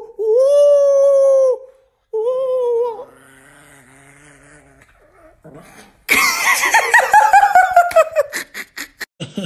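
Chihuahua vocalizing: two long, steady howling whines, a faint low growl, then a louder howl that falls in pitch and breaks up into short choppy sounds near the end.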